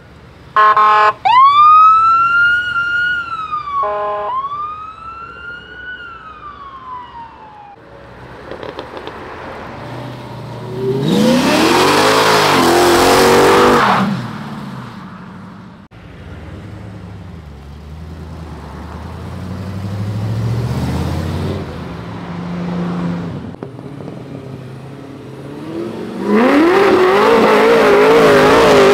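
A police-style siren on a Ford Crown Victoria yelps briefly, then wails up and down for several seconds. Then car engines rev hard with tyre noise during burnouts, loudest about 11 to 14 seconds in and again near the end.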